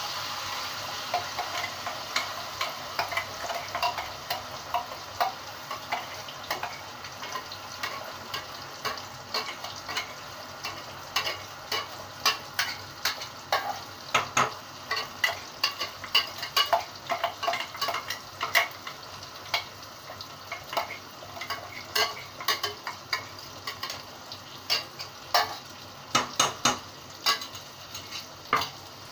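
Onion-cashew-sesame paste sizzling as it goes into hot oil in a kadhai, with a spoon scraping it out of a cup and clicking against the rim many times at an irregular pace.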